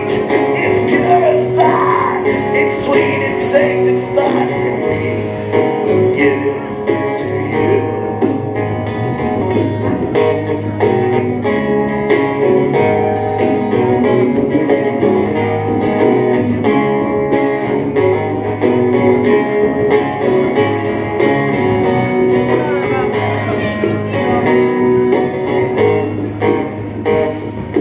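Live rock band playing: electric guitar and bass over a drum kit keeping a steady beat, with a sung voice in the first few seconds.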